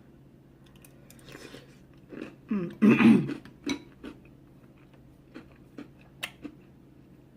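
A person eating soup: a loud, brief throat noise like a cough about three seconds in, then chewing and mouth sounds with several sharp clicks.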